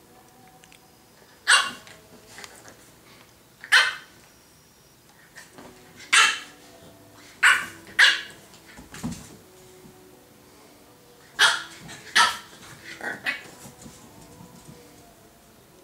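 French bulldog puppy barking: about eight short, sharp, high yaps spread over several seconds, some coming in quick pairs.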